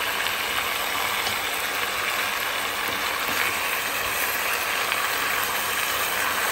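Steady sizzling hiss of sliced potatoes, onions and dried red chillies frying in oil in an enamel pot.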